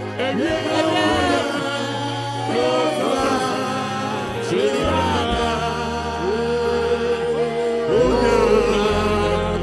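Gospel worship song: voices singing a slow chorus over sustained bass notes that change every few seconds.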